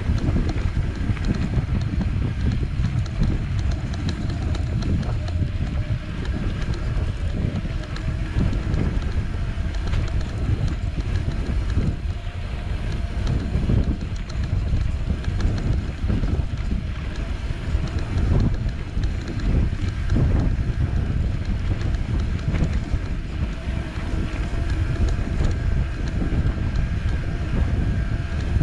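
Small off-road vehicle running steadily along a rough grass track, with wind buffeting the microphone and a faint steady whine from the drivetrain.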